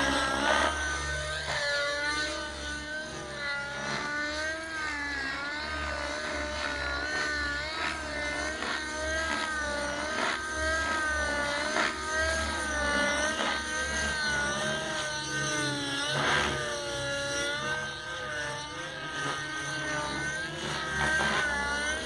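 Nitro-powered RC helicopter in flight: a high engine and rotor whine that wavers up and down in pitch as it manoeuvres and passes.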